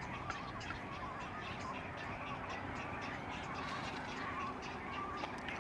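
Geese calling at a distance, mixed with many short chirps from other birds.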